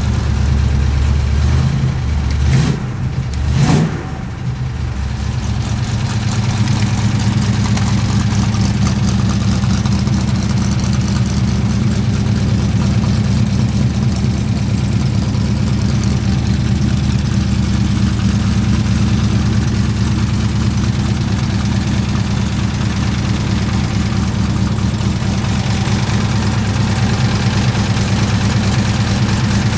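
Freshly built tunnel-rammed 383 Mopar big-block V8 running steadily at idle, with two brief throttle changes in the first few seconds.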